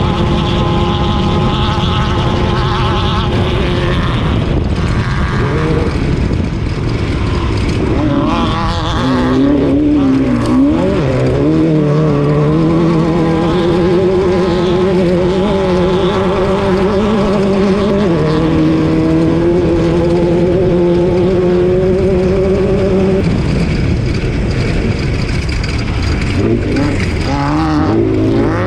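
Off-road race car's engine running hard, loud and steady. Its pitch wavers and shifts about a third of the way in, then steps up and down a couple of times as the throttle and gears change, over a constant rumble of road and wind noise.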